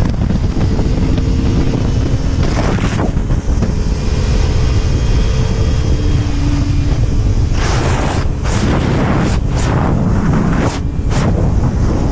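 Heavy wind buffeting on a helmet camera as a motorcycle rides at road speed, with the engine running faintly underneath. In the second half, a string of short rushing surges of wind noise.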